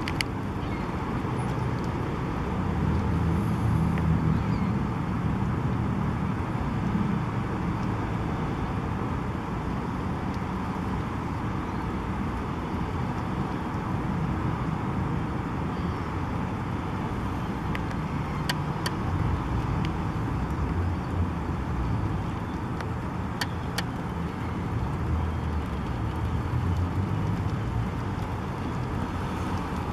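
Steady city street traffic: passing cars make a continuous low rumble, with a few faint brief clicks.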